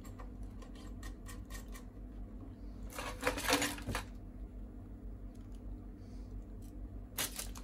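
Plastic packaging and cables being handled: scattered light clicks and taps, with a louder crinkling rustle of plastic bags about three seconds in, lasting about a second, and a short one near the end.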